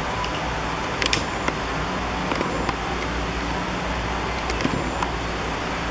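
Small sharp clicks of metal bits and the extension shaft of a precision screwdriver set being handled and fitted together, a handful of them spread across the few seconds, over a steady low hum and hiss.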